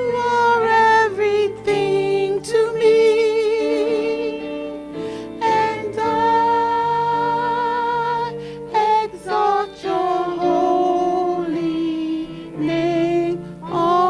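Women singing a gospel song with keyboard accompaniment, in long held notes with vibrato and short breaks between phrases.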